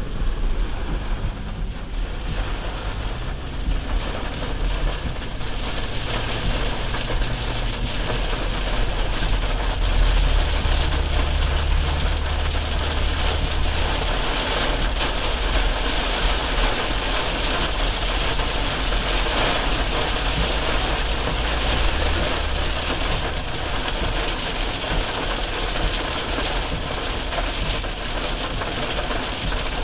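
Heavy rain pelting a car's roof and windshield, heard from inside the cabin over the steady low rumble of the engine and tyres on the wet road; the rain noise grows denser a few seconds in.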